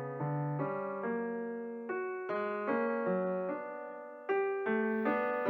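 Background music: soft electric piano notes played at a gentle pace, each note dying away slowly.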